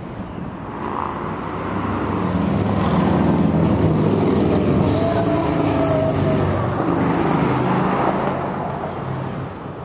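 A motor vehicle's engine running past, growing louder over a few seconds and then fading away.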